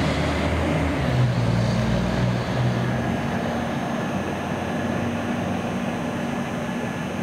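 Low engine drone of a fire engine driving away, fading after about two and a half seconds into steady traffic and road noise.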